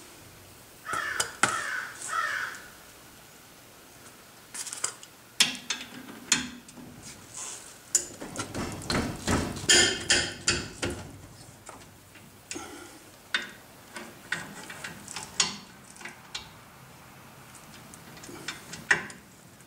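Socket wrench working on the 5/8-inch mounting bolts of a C3 Corvette front brake caliper as they are loosened: scattered metal clinks and clanks of the tool against the bolt and caliper, with a dense run of quick ratchet clicks near the middle.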